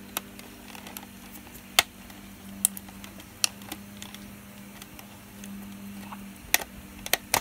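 Scattered sharp plastic clicks and ticks of a small screwdriver working a screw out of a VHS cassette's plastic shell, a few spread across several seconds with the loudest near the end, over a steady low hum.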